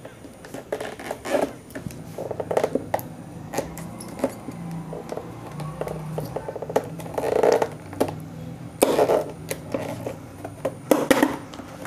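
Hard plastic clicks, knocks and scraping as a UV chamber is worked by hand into its mounting clips on an RO water purifier, with irregular sharp taps and a few short rustling scrapes.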